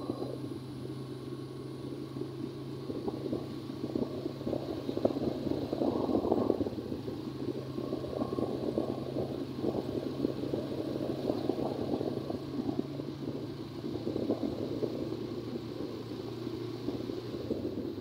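A vehicle's steady low hum while driving along a road, under an uneven rumble of wind buffeting the microphone.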